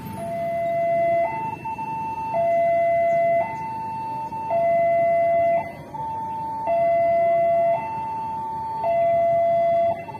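Railway level-crossing warning alarm sounding a steady two-tone hi-lo signal, each tone held about a second, the higher tone louder. It is the warning that a train is approaching and the crossing is closed.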